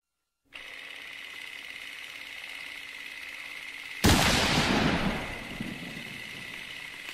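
Steady hiss with a faint thin whine, then about four seconds in a sudden loud crash like a blast that dies away over about a second and a half.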